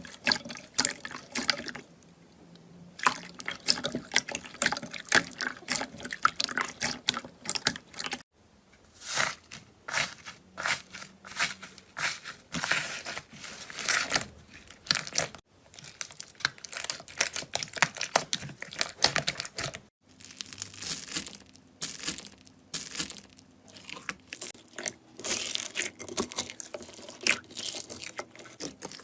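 Slime being squeezed, poked and stretched by hand, giving dense runs of wet clicks, pops and crackles, in several short takes that cut off abruptly.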